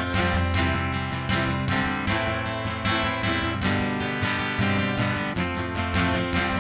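Acoustic guitar strumming chords, an instrumental passage of a folk-pop song with a steady strum.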